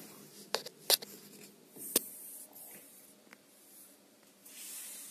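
Handling noise from a phone moved about in a wall ventilation opening. Sharp clicks and knocks come about half a second, one second and two seconds in, then a few fainter ticks and a soft rustle near the end.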